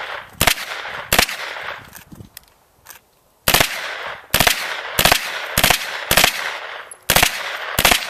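A shoulder-fired gun shooting single rounds in semi-automatic fire, about ten sharp reports spaced well under a second apart, with a short pause early on before the shooting resumes. Each shot rings on with a brief echo.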